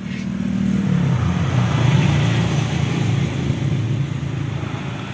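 A motor vehicle engine running, its low hum wavering in pitch and growing louder about a second in.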